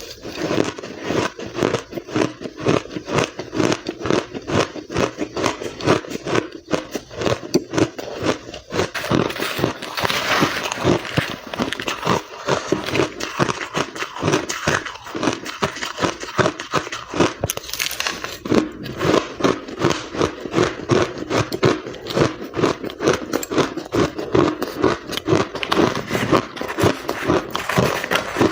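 Ice being bitten and chewed close to the microphone: a rapid, unbroken run of crisp crunches.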